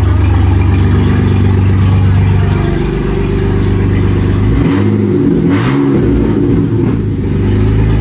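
BMW E39 528i's 2.8-litre straight-six running with the exhaust removed and no muffler, really loud. It holds a steady idle, then is revved up and let fall back a few times about halfway through.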